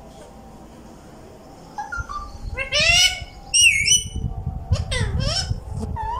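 Caged ring-necked parakeets calling: after about two seconds of quiet, a run of harsh squawks and quick up-and-down whistled chirps, over a low rumble.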